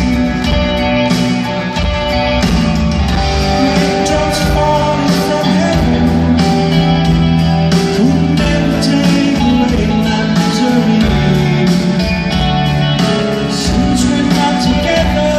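Live pop-rock band playing a song, with guitar and a sung lead vocal.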